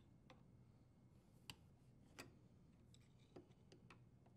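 Near silence broken by a few faint, irregular clicks of a screwdriver working a dishwasher's front leveling leg.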